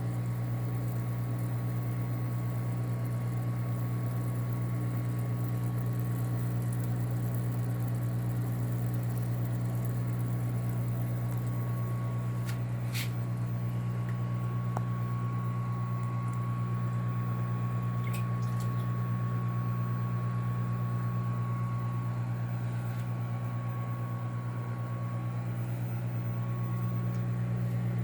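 Steady low hum of aquarium equipment, with a couple of faint clicks about halfway through.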